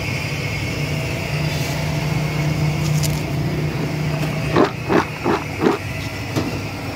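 Steady rumble of street traffic. About two-thirds of the way in, four short sharp sounds come in quick succession, followed by a fainter one.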